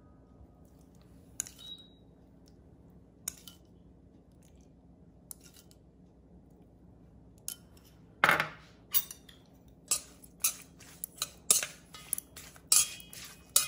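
Chopsticks tossing salad in a stainless steel mixing bowl, clinking sharply against the metal about two to three times a second through the last few seconds. Before that there are only a few faint clicks from the spoon and dressing bowl, and one louder knock about eight seconds in.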